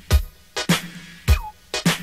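Hip-hop music without vocals: a drum-machine beat with kick and snare hits, and a short falling synth tone about halfway through.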